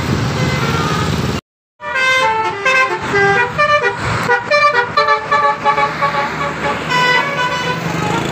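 Low vehicle engine rumble, then after a brief cut-out a bus telolet horn plays a fast melody of short multi-tone horn notes that jump in pitch several times a second.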